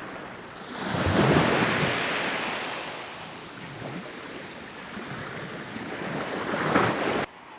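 Sea waves breaking on the shore, swelling about a second in and again just before the sound cuts off sharply.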